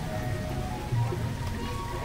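Background music with held notes and a low pulsing beat, over a steady patter of water.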